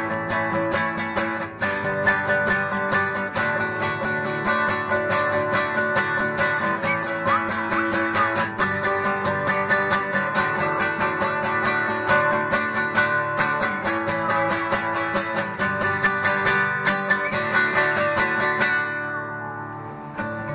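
Strummed guitar playing an instrumental passage of a song, in quick, even strokes under held chords. Near the end the bright upper part drops away and it gets quieter.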